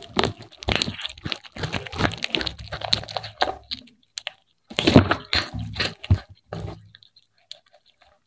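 Domestic cat chewing and crunching fried fish, picked up by a microphone right beside the plate: a quick run of crunches, a short break about four seconds in, a second run, then the crunching stops about a second before the end.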